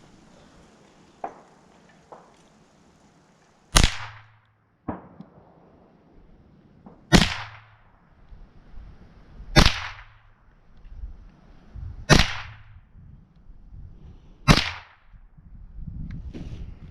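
Five shots from a Rossi RS22 .22 rifle, each a sharp crack, spaced about two and a half seconds apart: a five-round group fired to check the rifle's zero. A couple of faint clicks come before the first shot.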